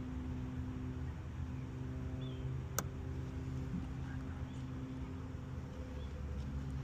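Steady low hum of an idling engine, with one sharp click about three seconds in.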